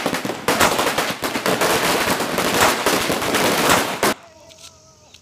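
A row of small firecrackers going off in a rapid, crackling string of bangs that stops suddenly about four seconds in.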